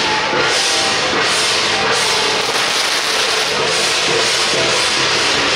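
A string of firecrackers going off in a dense, continuous hissing crackle, with faint procession music underneath.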